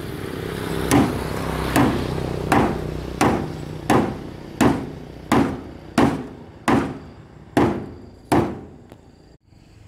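Hammer striking the wooden plank bed of a mini pickup truck, about eleven sharp blows a little under a second apart, stopping near the end.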